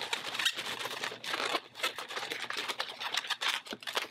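Inflated latex 260 twisting balloons rubbing against each other and the hands as one balloon is twisted onto pinch twists and wrapped around the others: an irregular run of short scrapes and squeaks.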